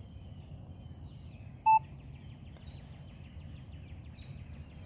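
A single short electronic beep from a Minelab Equinox metal detector's control box as its buttons are pressed to switch it off for a factory reset, about two seconds in. Behind it, high bird chirps repeat about twice a second.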